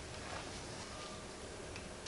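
Low background hiss with a few faint, light ticks. There is no shot in this stretch.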